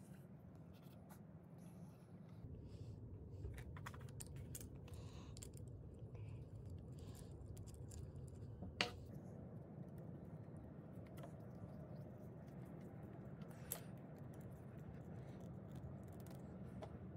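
Faint handling sounds of a small add-on electric motor being fitted to an old sewing machine. There is a sharp click about nine seconds in as its three-pin plug snaps into the socket, and a smaller click later, over a low steady noise.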